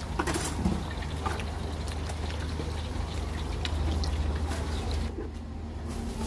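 Street food stall ambience: a steady low hum under a noisy background, with scattered small clicks and clinks. The high hiss thins out about five seconds in.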